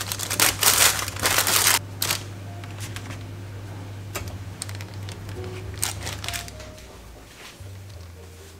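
Baking paper crinkling and rustling as it is handled on a baking tray, loudest for the first two seconds with a few softer rustles later, over background music.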